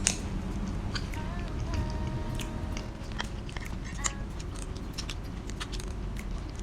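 A person chewing food close to the microphone, with soft scattered mouth clicks and smacks.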